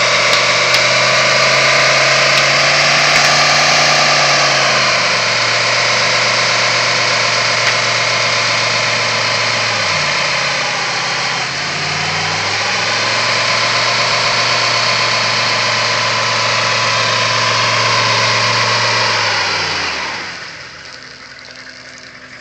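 Diesel pickup truck engine held at high revs in a stationary burnout, its rear tires spinning and squealing. The engine note shifts down about 5 seconds in and dips briefly around 10 to 12 seconds. Engine and tires fall away about 20 seconds in.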